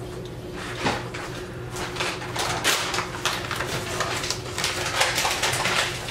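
Pork chops sizzling in a frying pan of oil and adobo liquid, with irregular crackles and pops over a faint steady hum.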